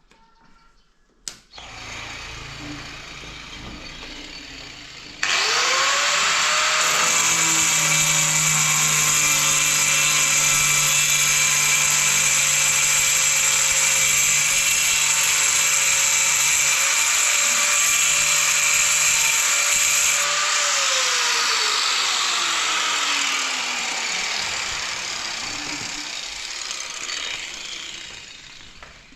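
Electric power tool motor starting abruptly with a rising whine, running loud and steady for about fifteen seconds, then winding down slowly as it coasts to a stop.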